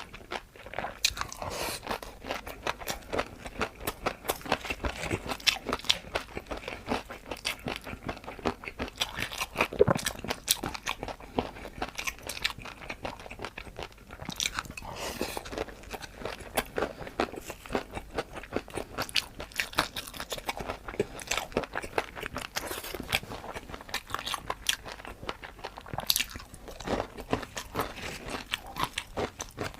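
Close-miked chewing and crunching of crispy noodles and jelly pearls: a rapid, continuous run of crisp crunches.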